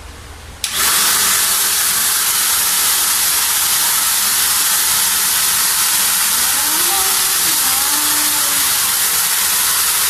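Gaabor 2-in-1 corded stick vacuum cleaner switched on about a second in, then running steadily with a loud, high airflow hiss.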